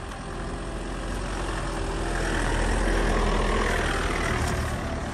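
Vehicle engine and road noise swelling to a peak about three seconds in, then easing off again.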